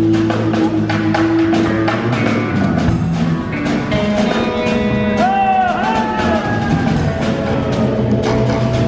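Live band playing an instrumental passage: a steady drum-kit beat under guitar, with a few bent notes sliding up and down about five to six seconds in.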